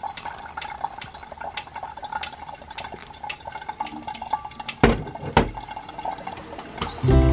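Hot water poured from a kettle into a paper coffee filter in a plastic pour-over cone, with a run of quick ticking drips throughout. Two loud knocks come about five seconds in, and music starts near the end.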